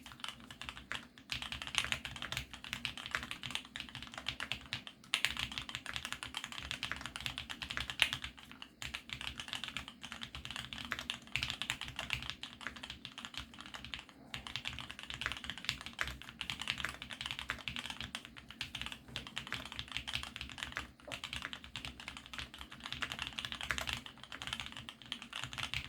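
Steady, fast typing on a GEONWORKS F1-8X full-aluminium, gasket-mounted custom mechanical keyboard with lubed Tealios V2 linear switches (Cherry black tops), broken by a few short pauses.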